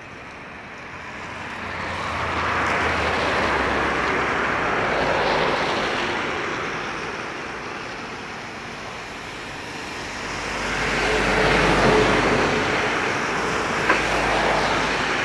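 Jet engines of an Airbus A320-family airliner taxiing on a wet runway: a rushing engine noise over a low rumble, swelling about two seconds in, easing off, then swelling again. A single sharp click near the end.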